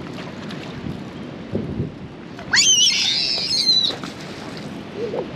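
Wind rumbling on the microphone throughout, with one loud, very high-pitched squeal, sliding up at the start and down at the end, lasting about a second and a half midway through.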